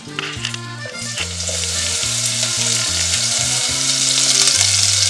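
Food hitting hot oil in a frying pan and sizzling. The sizzle starts about a second in and grows steadily louder, with low notes of background music underneath.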